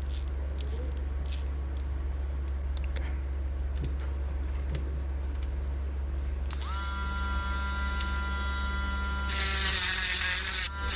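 Small electric rotary tool with a diamond cutting disc switching on about two-thirds of the way in, its motor whine rising quickly to a steady pitch. Near the end a loud hissing grind joins it for about a second and a half.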